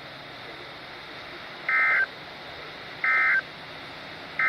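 NOAA Weather Radio's SAME end-of-message data burst: three identical short, shrill two-tone digital squawks about a second and a half apart. They mark the end of the required weekly test alert. Faint radio hiss fills the gaps between them.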